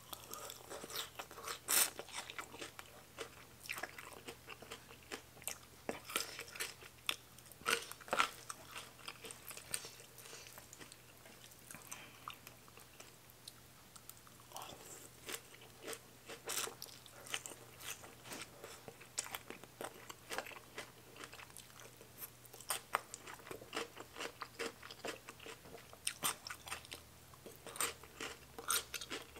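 A person eating rice noodles in curry with fresh greens: chewing and biting with irregular crunches and wet mouth clicks, several every few seconds.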